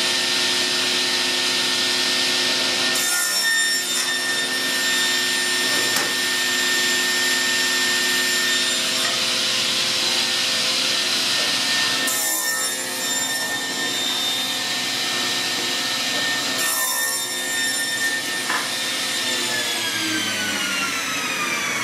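Sliding-table panel saw running with a steady whine, cutting wooden strips in several passes that bring bursts of rasping cut noise. Near the end the saw is switched off and the blade winds down, its whine falling steadily in pitch.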